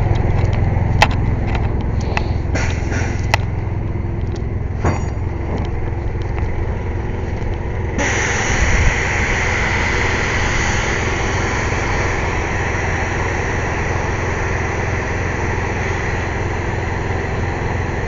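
An engine runs with a steady low drone, with a few sharp clanks in the first seconds. About eight seconds in, a loud rush of compressed air starts suddenly and keeps hissing steadily.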